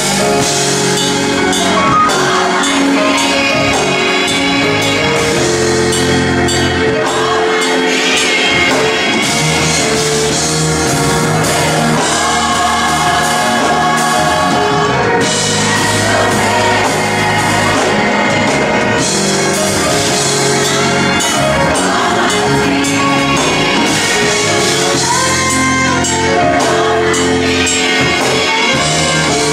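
Gospel vocal group singing with band accompaniment, the voices holding long notes over a steady bass line.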